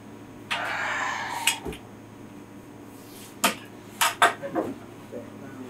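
Objects in a cleaning-supply closet being rummaged through: a rustling shuffle about half a second in, then a run of sharp clinks and knocks, several close together past the middle.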